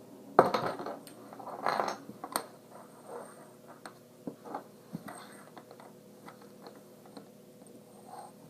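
Small hard objects being handled and knocked together: a sharp click about half a second in, a run of clicks and clatters over the next two seconds, then only occasional light clicks.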